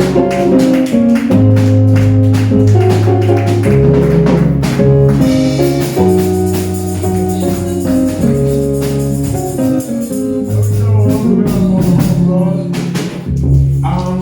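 Live band music: a bass line stepping between held notes under chords, with a steady beat of tambourine and drum strikes.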